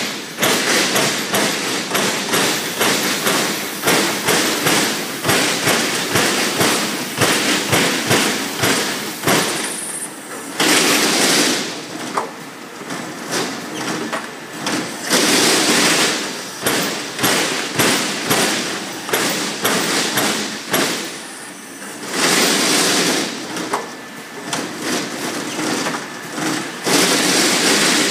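Trumpf TruPunch CNC turret punch press punching holes in sheet metal: a fast, uneven run of sharp punch strokes, broken a few times by short stretches of steadier noise.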